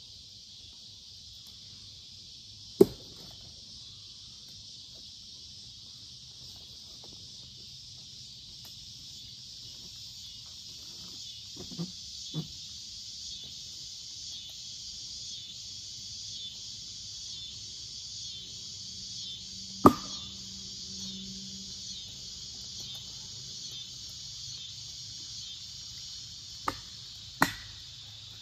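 Steady insect chorus, a dense high shimmer with a fine pulsing, broken by six sharp knocks, the loudest about three seconds in and about twenty seconds in, two more close together near the end.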